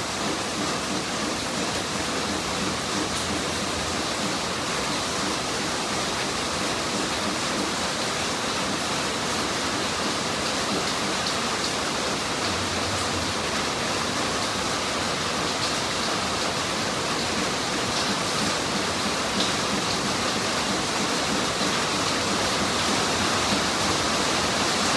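Steady, even rushing hiss like heavy rain or running water, with no distinct events.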